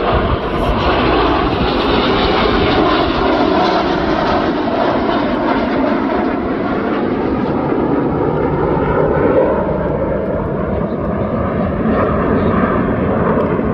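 BAE Hawk T1 jets, each with a single Adour turbofan, flying a display pass: a loud, continuous jet rush whose pitch slowly shifts as they fly by.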